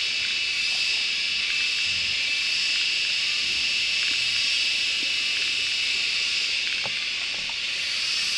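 Steady, loud, high-pitched drone of an insect chorus. A few faint rustles and clicks come through beneath it, most of them around seven seconds in.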